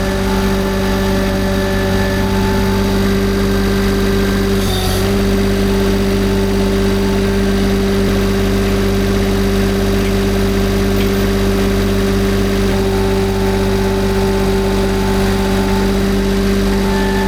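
Mini skid steer engine running at a steady speed, with a brief sharp click and a slight dip in the engine note about five seconds in.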